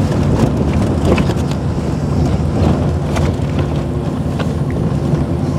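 4x4 off-road vehicles driving on an unpaved dirt road: a steady engine and tyre rumble with scattered sharp clicks.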